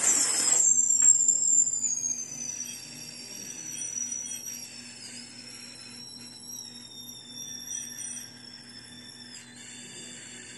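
Two whistling party blowers (fukimodoshi) blown continuously and held uncurled: two high, steady whistle tones, loudest in the first couple of seconds, then slowly falling in pitch and growing quieter.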